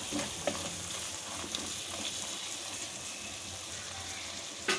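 Chopped tomatoes cooking down in oil with fried onion and spice paste in a pan, a steady sizzle with a few faint clicks. A brief, louder clatter comes right at the end.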